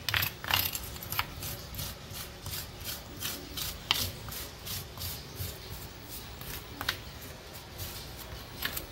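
Hand rubbing dry seasoning rub into raw racks of ribs on a metal baking sheet: irregular rubbing and scraping strokes, with a few sharper clicks scattered through.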